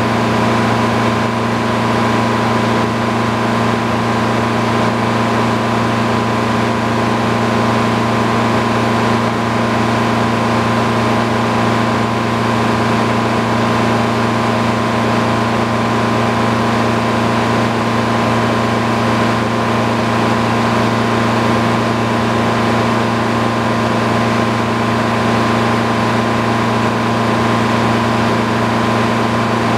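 Engine powering a belt-driven circular sawmill, running steadily with no log being cut; the hum holds an even pitch throughout.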